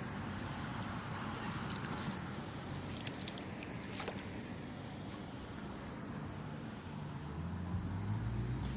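Outdoor ambience with a steady high-pitched insect drone, a few light ticks, and a low rumble near the end.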